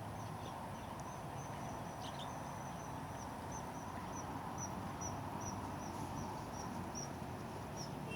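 Outdoor background with a steady hiss and a small animal's short, high chirp repeated about twice a second.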